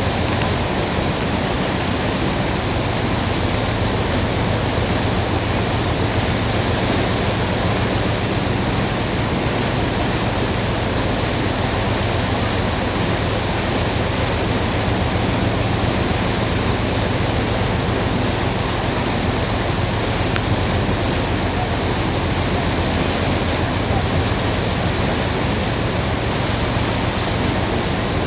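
Steady rushing of wind and water from a small motorboat under way, with a low, even engine hum underneath.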